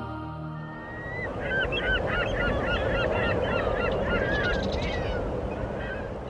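A flock of birds calling in many short, overlapping calls over a steady rushing noise, as soundtrack music fades out in the first second.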